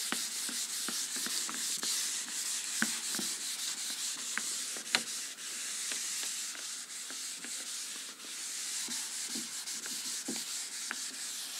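Handheld whiteboard eraser rubbing back and forth across a whiteboard, wiping off marker writing: a steady scratchy hiss with small knocks scattered through it.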